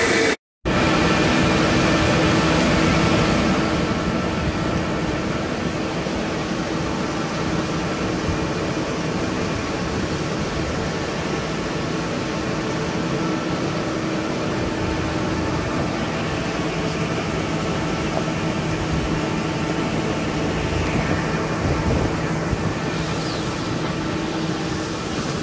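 Vlaming bulb harvester lifting tulip bulbs in heavy clay. Its sieving webs, rollers and drive make a steady mechanical rumble with a constant hum of a few steady tones. The sound cuts out for an instant just after the start.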